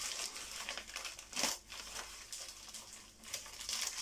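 Plastic packaging crinkling and rustling as a bottle of cleaning spray is unwrapped by hand, with one louder rustle about a second and a half in.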